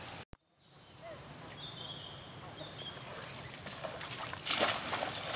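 Shallow stream water running steadily, with a burst of splashing about four and a half seconds in as a monkey paws at the water with its hand. A few short high chirps come around two seconds in, and the sound drops out for a moment just after the start.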